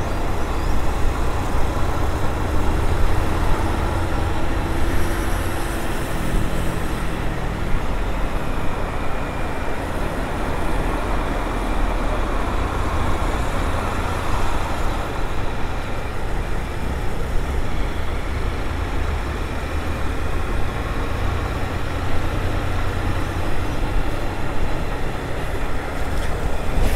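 Riding on a Honda CG 160 Fan motorcycle: wind buffeting the helmet-mounted microphone, mixed with the engine and road noise, steady throughout.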